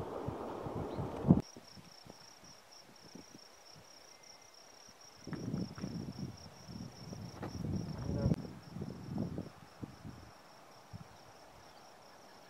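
Wind buffeting the microphone until it cuts off about a second in, then a steady, high-pitched, finely pulsing insect trill, with gusts of wind on the microphone in the middle.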